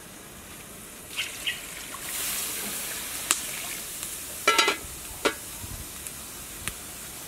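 Water poured from a plastic dipper into an aluminium cooking pot, then the pot's metal lid set on with a ringing clank about four and a half seconds in and a knock just after.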